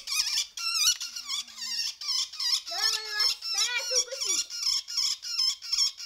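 Young great spotted woodpecker held in the hand and calling in protest: a rapid, even series of shrill, high squeaks, about three a second.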